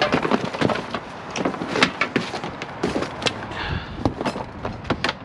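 Irregular knocks, clanks and rustling as scrap and debris are handled and rummaged through.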